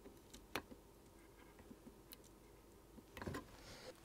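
Near silence with faint handling sounds from hands and a small tool working on a circuit board: one sharp click about half a second in, a few lighter ticks, and a short bit of rustling a little after three seconds.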